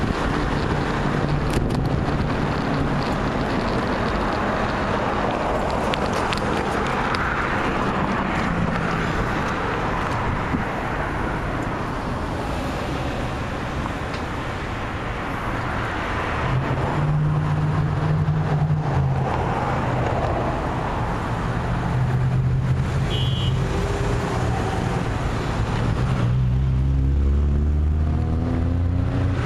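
Road traffic: cars passing through an intersection with idling engines humming low. Near the end a vehicle pulls away, its engine note rising.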